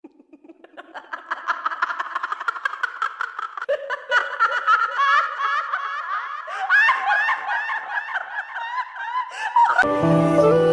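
High-pitched giggling laughter in quick repeated pulses, growing louder over the first few seconds. Near the end it is cut off abruptly by music with steady held notes.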